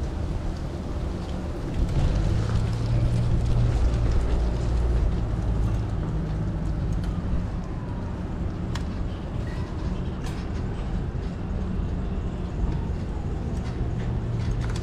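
Steady low rumble of street traffic, with a few light clicks about halfway through.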